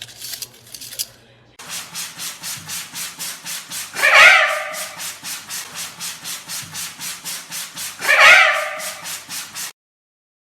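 Steady rhythmic scraping or rubbing, about three to four strokes a second, broken twice by a loud parrot squawk about four seconds apart; it all cuts off suddenly near the end.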